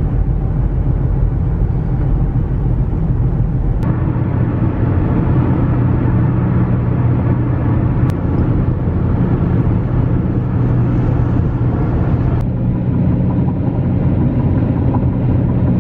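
Steady road and engine noise inside a car's cabin at highway speed, a low rumble that shifts slightly three times with faint clicks.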